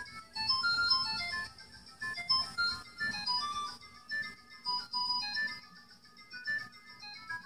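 Tenfifteen QW09 smartwatch's small speaker playing its startup tune while it boots: a melody of short, high electronic notes with brief pauses between phrases.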